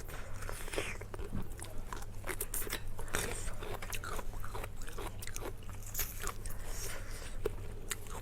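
Close-miked eating: biting and chewing with frequent short, irregular crunchy clicks.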